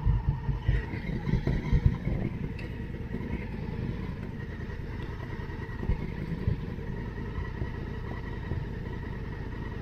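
Honda Africa Twin parallel-twin engine idling at a standstill, heard from the rider's helmet camera. For the first couple of seconds, wind buffets the microphone in low thumps; after that only the steady idle remains.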